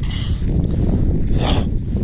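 Wind buffeting the microphone with a steady low rumble, and one short, higher sound about one and a half seconds in.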